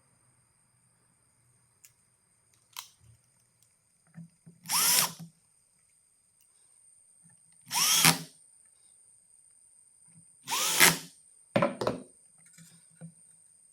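Electric drill run in short bursts: three loud runs under a second each, a few seconds apart, each spinning up and winding down, then a shorter fourth run right after the third, with small knocks in between.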